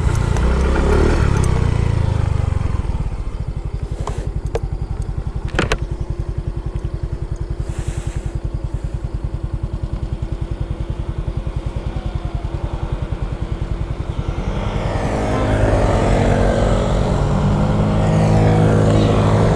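Motor scooter engine idling with a fast, even putter after the bike pulls over and stops, with a couple of sharp clicks early on. From about fifteen seconds in, other scooters' engines approach and grow louder.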